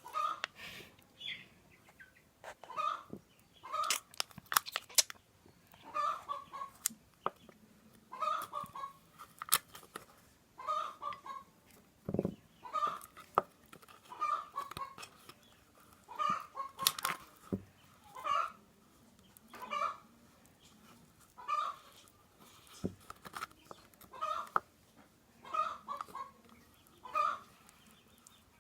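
Chicken clucking in short repeated calls, about one every second or so, with a few sharp clicks and a low thud in between.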